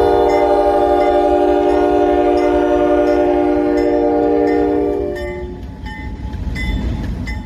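Diesel locomotive's multi-chime air horn sounding one long blast of about five seconds, then cutting off. A low rumble from the train runs underneath.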